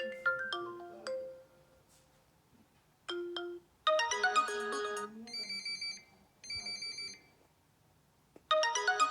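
Vivo smartphone ringtones played one after another: a falling run of chime-like notes fades out about a second and a half in. After a pause comes a brighter melody with two bursts of quick repeated electronic beeps, then another ringtone starts near the end.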